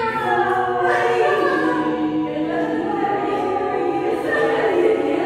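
A group of voices singing together, holding long notes, with a slide down in pitch near the start.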